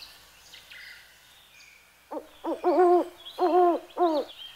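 A bird's low hooting calls: a run of five short cooing notes starting about two seconds in, the middle ones the longest. Faint high chirps of small birds sound behind them.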